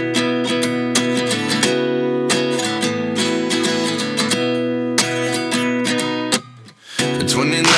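Background music: a strummed acoustic guitar, with a sudden brief drop to near quiet about six and a half seconds in before the song comes back in fuller.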